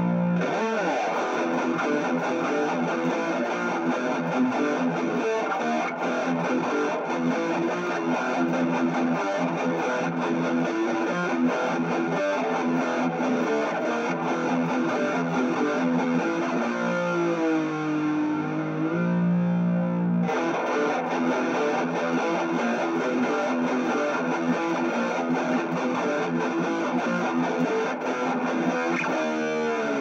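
Electric guitar with a white Stratocaster-style body, played through a JCM966 amplifier with overdrive. It plays a steady run of sustained notes, with a bent note about two-thirds of the way in and a note held with vibrato near the end.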